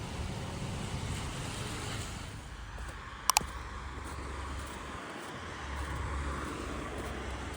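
Steady low rumble and hiss of background noise, with a sharp double click about three seconds in.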